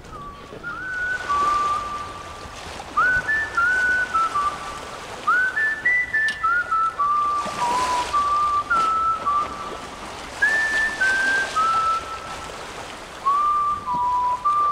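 A whistled melody of single sliding notes, the end-screen music, with a soft swishing swell every few seconds.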